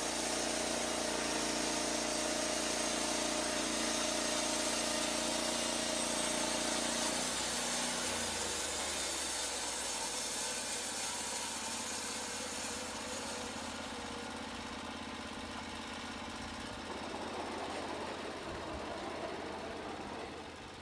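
Portable bandsaw sawmill running, its engine at a steady note while the blade cuts through a log. The engine note changes about seven seconds in, and the sound grows fainter toward the end.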